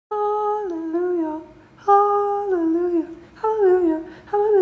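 A woman humming a tune in short phrases, each stepping down in pitch, with brief pauses between them.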